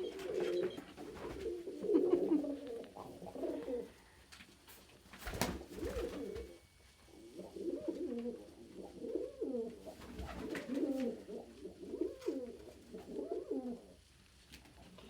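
Domestic pigeons cooing over and over, low rising-and-falling coos in several runs, during a squabble between pigeons. One sharp slap stands out about five seconds in.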